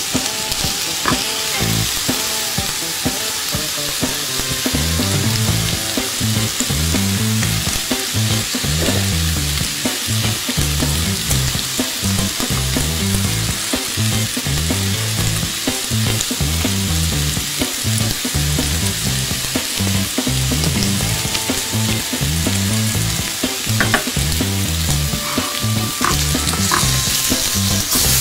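Slices of beef sizzling steadily on a hot tabletop grill, with a few light clicks.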